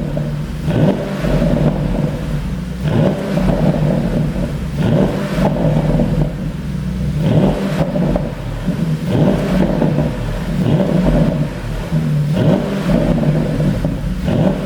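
Porsche Panamera GTS twin-turbo V8 revved again and again, about every two seconds, with exhaust pops and crackles as the revs drop: the overrun pops an ECU pop tune produces.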